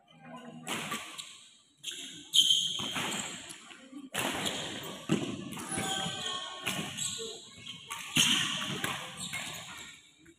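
Sharp, echoing knocks and thuds from badminton play in a large indoor hall, several in a row, with voices in the background.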